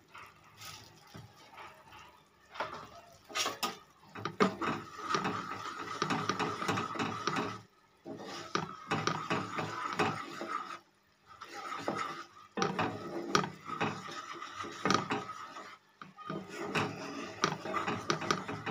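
Wooden spatula stirring and scraping a thick, bubbling jaggery syrup with ground spices in a non-stick frying pan, in runs of quick strokes with a few short pauses.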